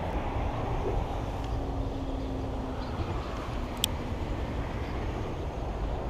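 Steady low rumble of distant traffic. About four seconds in comes a single sharp click from the spinning reel.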